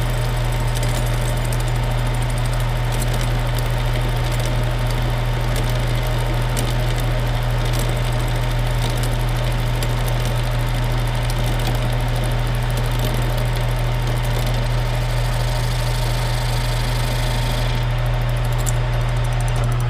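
Metal lathe running steadily while its tool cuts through a clamped stack of ultra-thin sheet laminates for washers, with a continuous fine crunching as the individual laminates break off layer by layer. The crunching lightens near the end.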